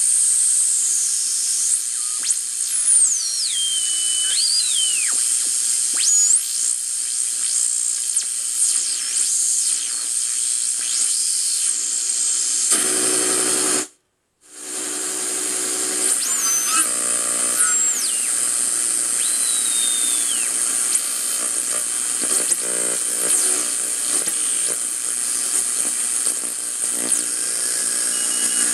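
RCA AR-77 tube shortwave receiver tuning across a band: steady hiss and static from the speaker, with whistling tones that slide up and down in pitch as signals are passed. The sound cuts out for about half a second near the middle.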